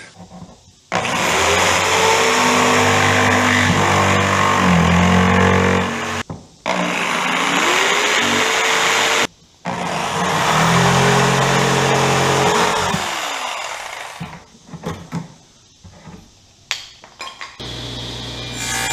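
Electric power tool cutting a notch into the wooden back panel of an antique chest of drawers, in three runs of a few seconds each. Its motor pitch dips under load and climbs back. The runs break off abruptly between them.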